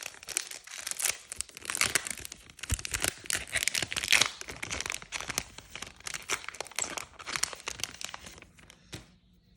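Foil wrapper of a Yu-Gi-Oh booster pack crinkling and tearing as it is opened by hand: a dense run of crackles that thins out near the end.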